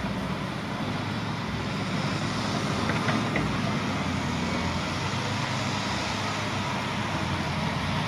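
Liebherr 904 wheeled excavator's diesel engine running steadily as it digs, a constant low hum under a broad hiss, with a couple of faint clicks about three seconds in.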